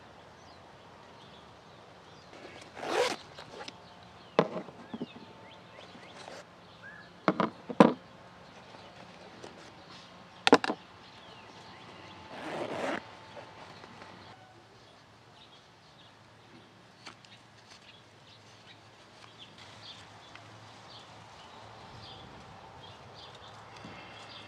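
Handling noises: a few sharp clicks and knocks, mostly in the first half, and two short rustling scrapes about three and twelve seconds in, over a quiet outdoor background.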